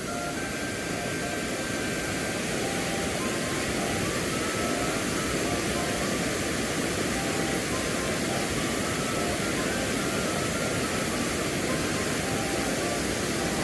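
Steady rush of fast-flowing water in a mountain stream, growing slightly louder a few seconds in.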